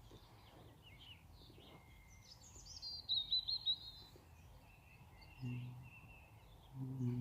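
Birds chirping and singing over a faint steady outdoor background, with a quick run of falling chirps about three seconds in. Two short low hums come near the end.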